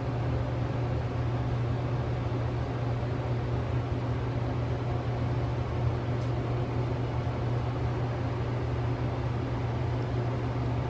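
Steady mechanical hum of a running motor: a constant low drone under an even hiss, unchanging throughout.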